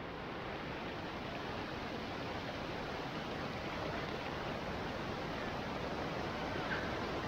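Shallow, rocky river rushing over boulders and small rapids: a steady rush of flowing water.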